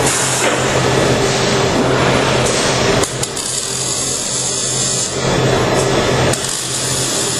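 MIG welding arc crackling and sputtering over a steady electrical hum. It drops out about three seconds in for a couple of seconds of high hiss, then starts crackling again.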